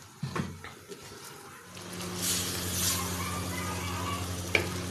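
A few light clinks of a clay pot lid. After about a second and a half a steady low buzzing hum sets in, while a wooden spoon stirs cluster beans in a clay handi, scraping, with one sharp knock of the spoon against the pot near the end.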